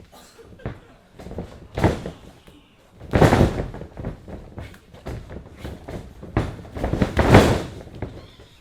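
Heavy thuds of wrestlers' bodies slamming onto the wrestling ring, several times, each with a short ring-out; the loudest come about three seconds in and again about seven seconds in.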